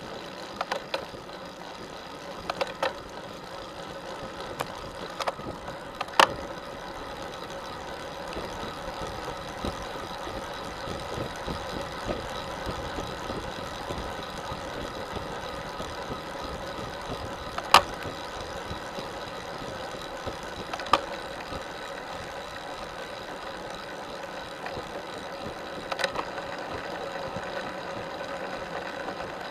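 Road bicycle riding noise picked up by a camera mounted on the bike: a steady whir of drivetrain and tyres on asphalt, broken by a few sharp clicks, the loudest about six and eighteen seconds in.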